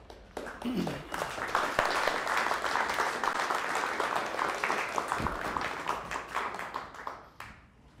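Audience applauding a lecture that has just ended: dense clapping that starts about half a second in, holds steady, and dies away near the end.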